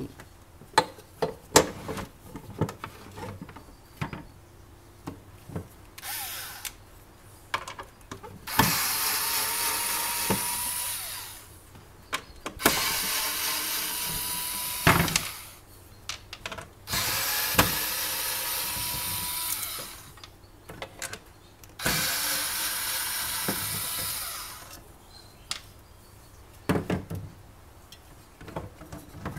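Cordless drill-driver running in four separate bursts of a few seconds each, plausibly backing screws out of the pie maker's casing. Handling clicks and knocks of parts and tools come before and between the bursts.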